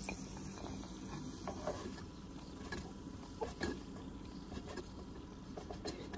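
Faint scattered light clicks and taps as fried cashews and raisins are lifted from the pan of ghee with a plastic spoon and set on a ceramic plate, over a low steady background hum.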